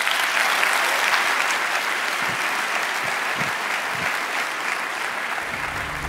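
Audience applauding steadily, with low music coming in just before the end.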